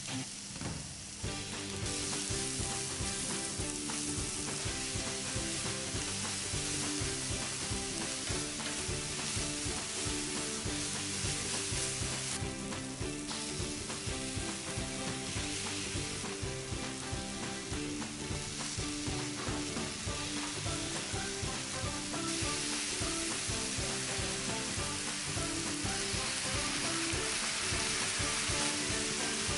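Sliced onions, then tomato wedges and browned chicken pieces, sizzling as they fry in butter in a frying pan, stirred and turned with tongs. The sizzle grows louder about two seconds in and keeps up steadily.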